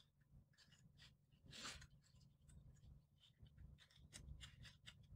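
Faint rustling and scratching of belt webbing being threaded back through a tri-glide, with a few soft clicks; the sounds pick up a little near the end.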